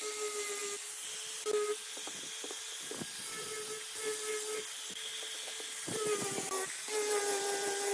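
Electric angle grinder with a sanding disc running against the end of a pine board: a steady motor whine over the hiss of the disc on the wood, the pitch shifting slightly as the pressure changes.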